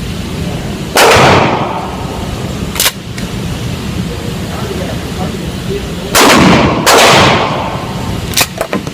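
Mossberg 500 pump-action shotgun firing three shots, one about a second in and two in quick succession, under a second apart, past the middle, each with a short ringing tail. Sharper, quieter clicks fall between them.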